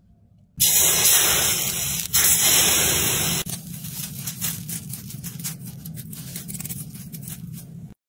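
Molten silver hissing and crackling in a damp sand mould. A loud hiss starts about half a second in and stops abruptly about three seconds later; a quieter crackle of small ticks follows as the casting sets.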